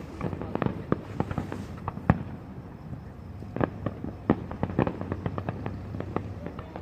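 Fireworks going off: an irregular rapid string of sharp pops and cracks, with a few louder bangs spread through.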